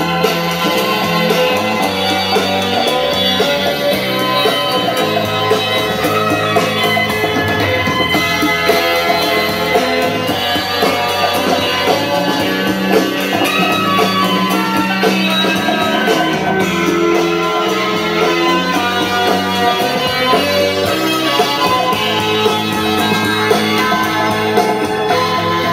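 Music playing through the speakers of a homemade 3D-printed Bluetooth boombox, steady and loud throughout.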